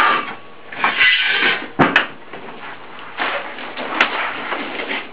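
Rubber weather stripping being pulled off the edge of a double-glazed glass door panel: rustling scrapes, with sharp clicks twice in quick succession about two seconds in and once more about four seconds in.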